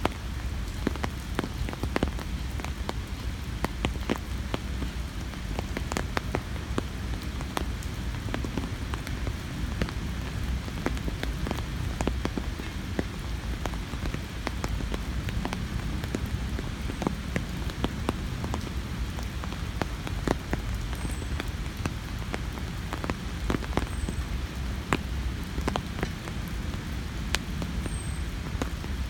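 Steady rain with many close, irregular drop ticks over a constant low rumble. A few faint, short, high bird chirps come in the second half.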